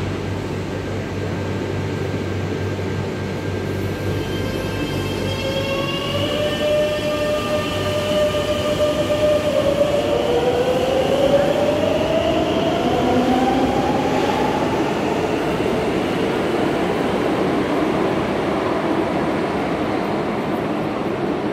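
Madrid Metro train 9060 pulling away from an underground platform: a steady rumble of wheels on rail, and about four seconds in, an electric whine from the traction motors that climbs in pitch as the train speeds up, ending in one tone gliding steadily upward.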